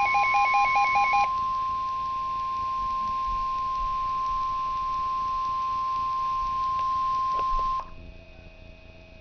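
NOAA Weather Radio warning alarm tone: a single steady high tone (1050 Hz) that cuts off sharply about eight seconds in, signalling that a tornado warning follows. During the first second a pulsing beep overlaps it, and after the cutoff only a faint hum remains.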